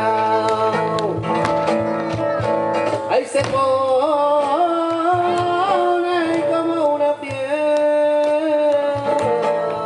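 Flamenco-style singing, held and ornamented, over acoustic guitar accompaniment. Sharp percussive taps run through it.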